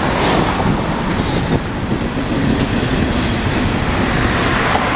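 CN freight train's covered hopper cars rolling across a railway overpass overhead, a steady loud rumble of steel wheels on the rails.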